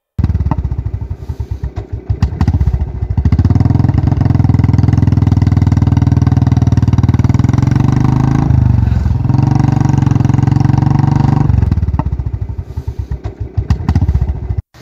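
Motorcycle engine running as it is ridden, a low rhythmic pulsing that holds under steady throttle with a short dip about nine seconds in. The engine then eases off after about eleven seconds as the bike slows to a stop.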